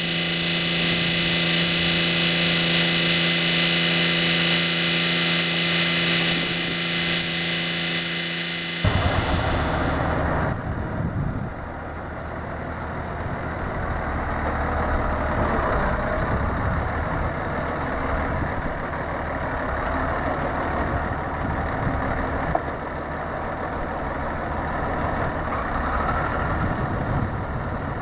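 Farm machinery engines running. For the first nine seconds there is a steady, even hum. Then the sound switches abruptly to a lower, rougher engine rumble that carries on.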